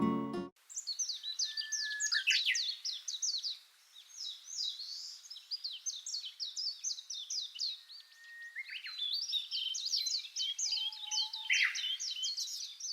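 Acoustic guitar music cuts off about half a second in. Small songbirds then twitter in fast runs of high, quick chirps, in three bouts with short pauses between them.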